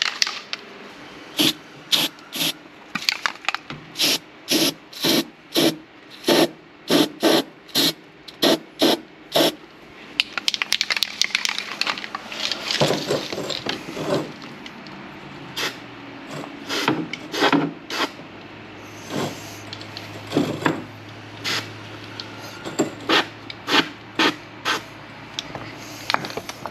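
An aerosol can of spray-on bed liner spraying in many short bursts, some in quick runs of about two a second, with a longer stretch of spraying about halfway through.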